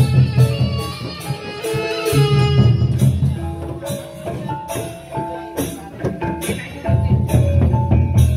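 A Sasak gendang beleq ensemble playing: hand-held cymbals clashing in a steady rhythm about three times a second, small kettle gongs sounding short melodic notes, and big barrel drums beating underneath. The drums drop back in the middle and come in strongly again near the end.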